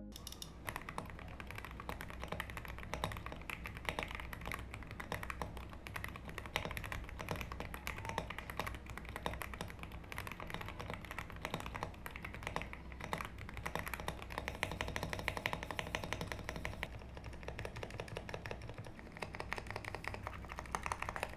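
Continuous fast typing on a GMK87 gasket-mounted mechanical keyboard fitted with Gateron Milky Yellow Pro linear switches and Japanese keycaps. The dense run of soft keystrokes has a pleasant, quite quiet sound.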